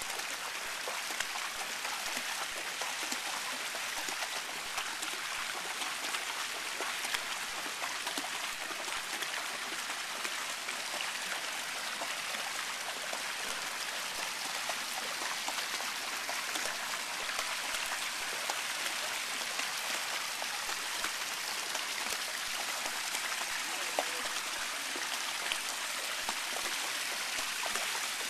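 Steady splashing and trickling of water pouring into a shallow pool, with many small splashes from a dog wading through the water.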